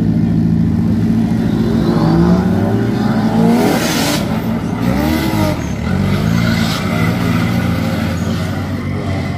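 Drift car engine running and revving, its pitch climbing and falling back several times in the middle, with a short burst of hiss about four seconds in.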